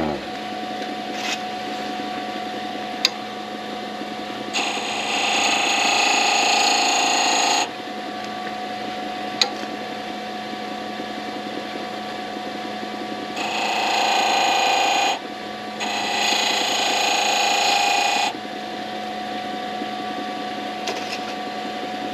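Wood lathe running with a steady hum, while the spinning oak-and-antler pen blank is worked three times, each time giving a few seconds of louder scraping hiss. There are a few faint sharp ticks between these stretches.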